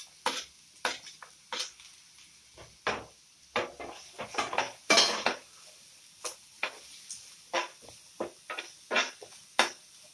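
A utensil stirring chopped onions in a nonstick frying pan as they sauté: irregular sharp scrapes and taps against the pan, about two a second, loudest about halfway through.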